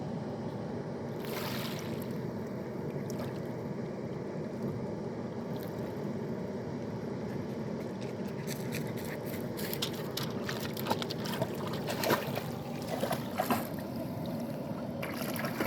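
Water released over a low river dam, rushing and splashing steadily. From about halfway on, short sharp splashes and clicks come in over it.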